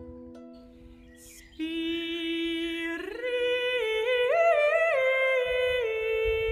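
Background music: a slow melody of long held notes over a steady underlying tone, becoming louder about one and a half seconds in and stepping up and down in pitch from about three seconds.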